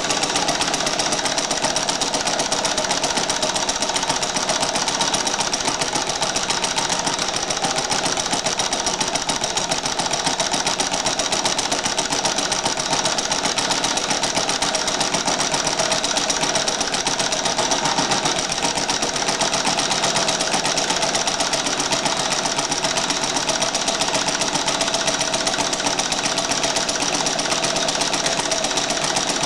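Prototype Atkinson differential model gas engine, with two pistons working in one cylinder and four strokes per crank turn, running steadily at a fast, even beat. It is fed by a bare venturi carburetor with no throttle plate, so it runs at one fixed speed.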